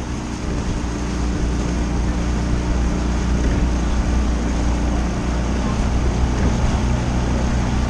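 Outboard motor of a rowing coach's launch running steadily under way, with an even rushing noise of wind and water over its low hum.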